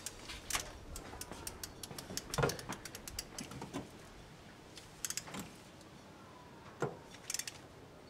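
Ratchet of a torque wrench clicking in short runs as cylinder head bolts are tightened, with a duller knock about two and a half seconds in.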